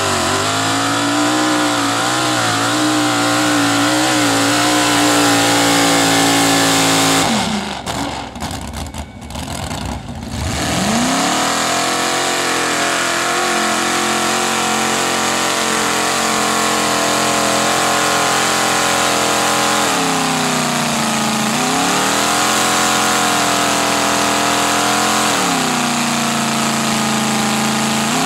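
Lifted mud-bog trucks' engines running at high revs through hood-mounted exhaust stacks as they churn through deep mud. A few seconds of broken, quieter sound come about a quarter of the way in. Then a second truck's engine holds high revs, its pitch dropping twice briefly and climbing back.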